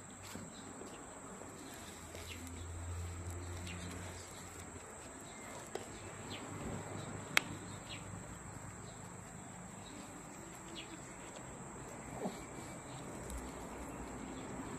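A steady high-pitched insect drone with a few faint bird chirps, and a single sharp click about seven seconds in.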